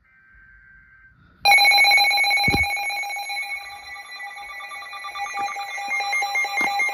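Emergency Alert System signal opening a new alert. A faint warbling data burst of the alert header comes first, then a loud electronic alert tone starts abruptly about a second and a half in and holds steady with a fast pulse.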